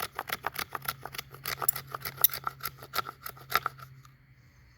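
A knife scraping fatwood in quick, repeated strokes, about five or six a second, shaving off resin-rich tinder. The strokes stop shortly before the end.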